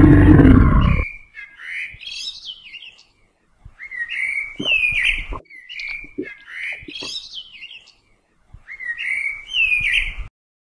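Dinosaur sound effects: a loud, rough roar for about the first second, then high chirping, squeaking calls with quick rising and falling pitch, coming in four bursts of about two seconds each.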